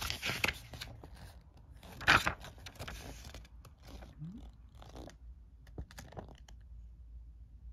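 Pages of a paper rule booklet being flipped and turned by hand, rustling in a run of quick flicks, the loudest about two seconds in, then a few lighter page turns.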